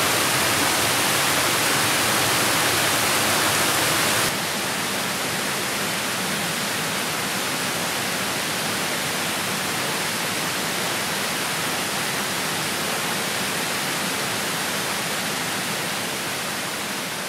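Small woodland waterfall cascading over rock ledges: a steady rush of falling water that steps down a little quieter about four seconds in and fades slightly near the end.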